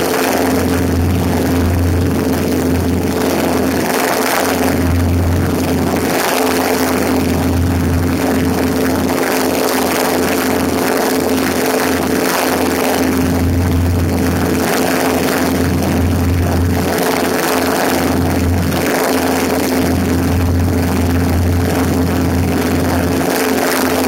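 Cessna 150's Continental O-200 four-cylinder engine and propeller droning steadily in flight, with heavy wind rush over a microphone mounted outside on the wing strut.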